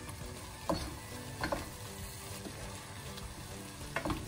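Wooden spoon stirring a thick tomato-and-meat sauce in a pressure-cooker pot over a steady sizzle, knocking against the pot a few times (twice in quick succession near the end).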